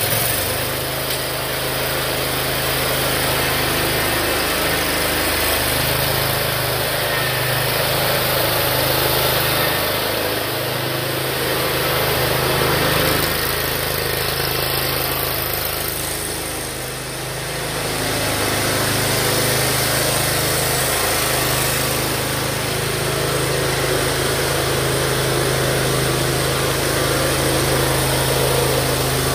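John Deere Z916B zero-turn mower's engine running steadily, with a brief dip in loudness a little past halfway.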